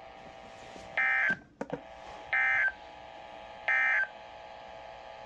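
EAS end-of-message (EOM) code on NOAA Weather Radio: three short warbling digital data bursts, about 1.3 seconds apart, signalling the end of the warning broadcast.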